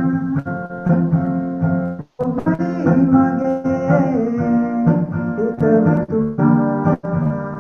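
Keyboard music of a self-written song streamed over a video call, with steady held notes and one brief cut-out in the sound about two seconds in.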